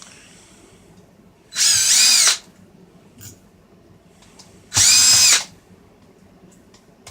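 Power driver backing screws out of a car radio's housing: two short runs of the motor, each spinning up, holding briefly and winding down, the second about three seconds after the first.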